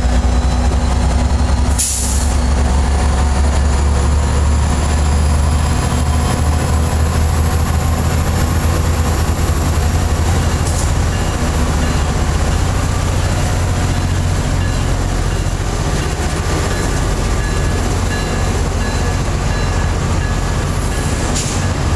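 Tri-Rail diesel-electric locomotive running, a heavy steady rumble, as the commuter train pulls away along the track. There is a single short click about two seconds in.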